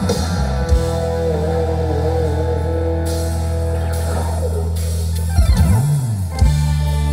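Live band music through a stage PA: an electric guitar melody over long held bass notes, with a swooping slide in pitch about five and a half seconds in.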